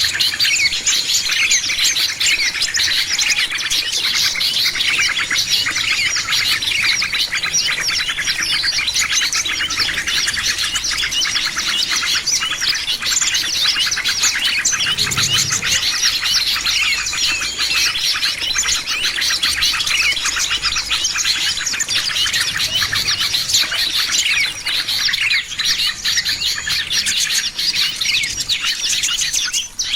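Chorus of many small songbirds chirping and twittering at once, dense overlapping rapid chirps with no let-up.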